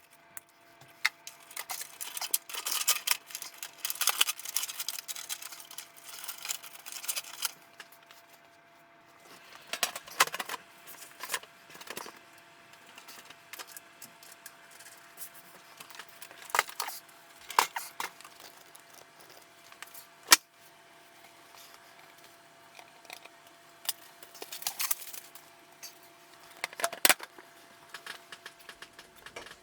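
Handling noise from computer hardware being assembled: irregular small metallic clicks, rattles and rustles of parts, screws and cables, with one sharp click about twenty seconds in.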